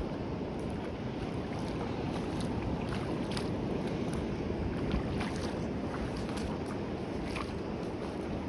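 Sea water washing steadily against the shore, with scattered faint clicks and crackles over the wash.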